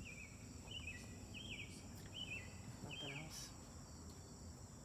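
Faint outdoor evening ambience: a steady high-pitched cricket chirring, with a bird repeating a short chirping phrase about five times, once every three-quarters of a second or so.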